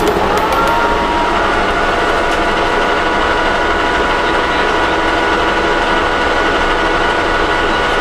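Old metal lathe spinning a drilled motorcycle brake disc. The machine runs up to speed with a rising whine in the first second, then holds a steady whine.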